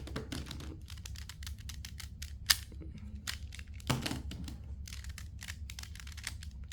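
3x3 speedcube being turned one-handed: a quick run of plastic clicks from the layers turning, with a couple of sharper clacks about two and a half and four seconds in.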